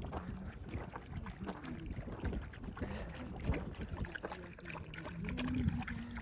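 Hunting dogs lapping and splashing water at a drinking trough, with a quick irregular run of wet clicks and slaps. A low steady hum swells near the end.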